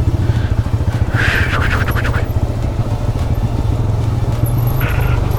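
Motorcycle engine running steadily at low revs, with a short raspy burst of higher sound about a second in.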